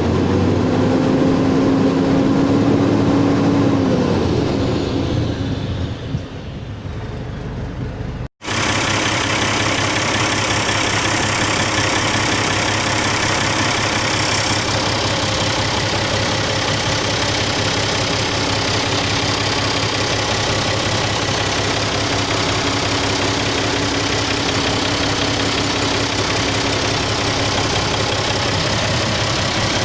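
Isuzu 6WF1 inline-six diesel engine revved up and held for a few seconds, then dropping back, as its RPM is checked for the low-power fault. After a short break it runs steadily at idle.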